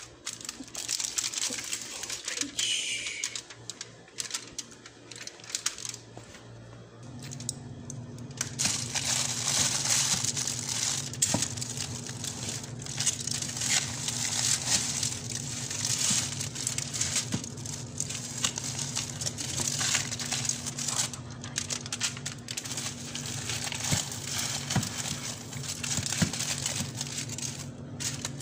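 Aluminium foil crinkling as it is pressed over a dish. Then plastic bags and foil-wrapped packets rustle and crinkle as they are shifted about inside a freezer. A steady low hum comes in about seven seconds in.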